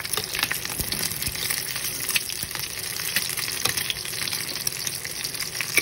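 Eggs frying in oil in a nonstick pan: steady sizzling with frequent small crackles and pops.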